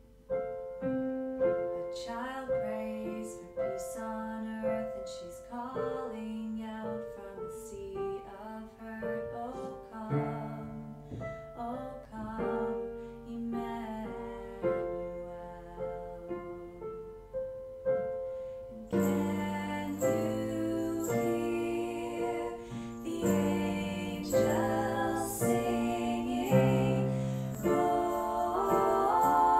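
Piano playing a slow, gentle passage of single notes and chords, each one ringing and fading. About two-thirds of the way through it grows louder and fuller, with deep bass chords under the melody.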